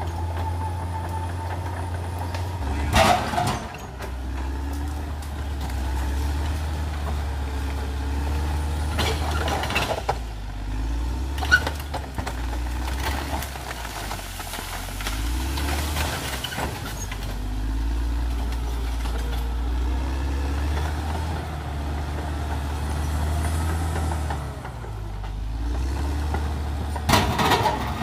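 Cat D6R XL bulldozer's diesel engine running steadily under load, its pitch rising and falling as it works, with a few sharp clanks, the loudest about three seconds in and near the end.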